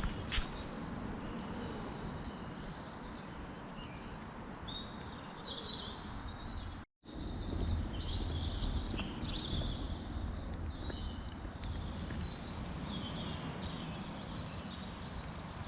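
Small birds singing, a busy run of quick chirps and trills, over a steady low background rumble. The sound cuts out for an instant about seven seconds in.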